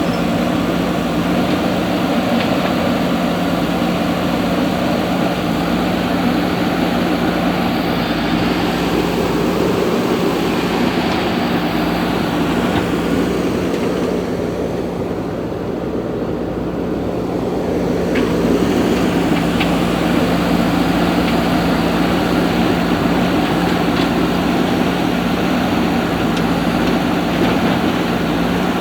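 Steady machine hum with one constant low tone and an even mechanical whirr, unchanging throughout.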